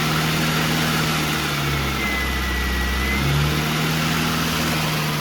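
Freshly rebuilt 1098 cc A-series engine of a classic Mini idling on its first run after the rebuild, its note shifting back and forth every second or two.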